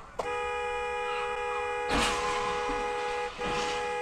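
Car horn held steadily, breaking off briefly a little past three seconds in and then held again. A loud bang about two seconds in, over the horn.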